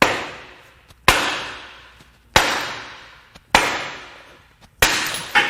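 Hammer blows on a blown 4.6L DOHC V8 engine being beaten apart, six hard metal strikes about a second apart, each ringing out before the next.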